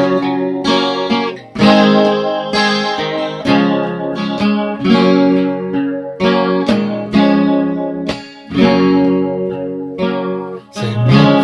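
Guitar music, an instrumental passage of strummed and plucked chords with a new chord struck about every second.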